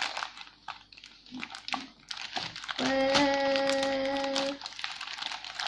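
Scissors snipping through a plastic mailer bag, the plastic crinkling and rustling. Near the middle a voice holds a steady hum for about two seconds.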